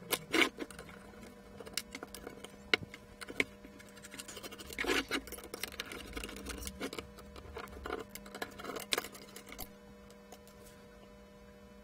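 Irregular small clicks, taps and scrapes of plastic and metal parts being handled as the analyser's magnetic strip reader head is worked loose from its mount, over a faint steady hum.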